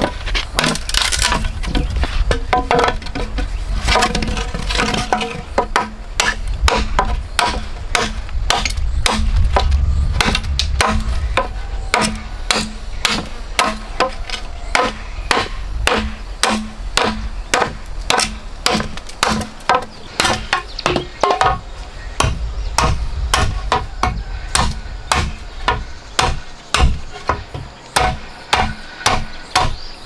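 A tool striking wood over and over at a steady rhythm of about two blows a second, each blow a sharp, slightly pitched knock.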